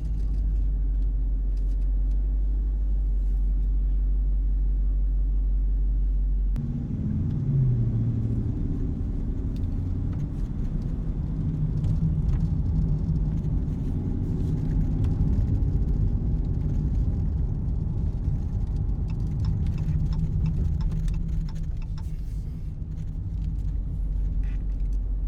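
Dodge Charger R/T's 5.7-litre Hemi V8, fitted with an AFE cold air intake, running with a steady low drone. About six and a half seconds in it is put under throttle, its note rising as the car accelerates, and it keeps pulling with a changing pitch before settling back to a steady drone near the end.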